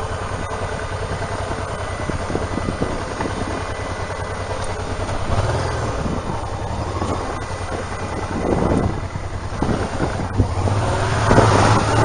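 Honda Deauville's V-twin motorcycle engine running at low speed over a rough lane, with wind rush on the microphone. The engine and wind grow louder near the end as the bike speeds up.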